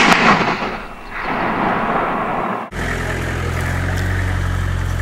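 The loud, rolling echo of a rifle shot dying away, then a vehicle engine running steadily with a low hum from about three seconds in.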